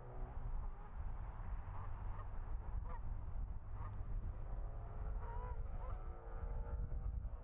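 Canada geese giving a series of short honks, more frequent in the second half, over a steady low rumble.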